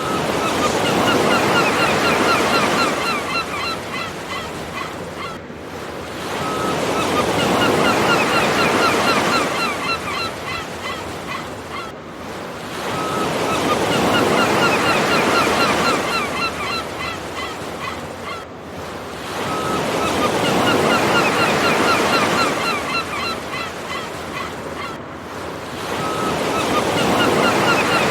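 Looped nature ambience: surf washing in waves with a flock of birds giving many short honking calls over it. The same clip of about six and a half seconds repeats, each pass swelling and then fading.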